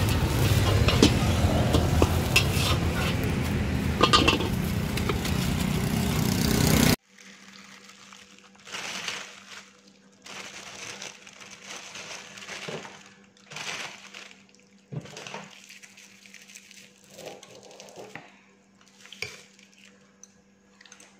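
A steel wok on a gas burner: a loud steady rush of flame and hissing, with a few sharp metal scrapes and clinks as a utensil works the pan. About seven seconds in, the sound drops suddenly to a faint steady hum with soft, irregular rustles and light clinks.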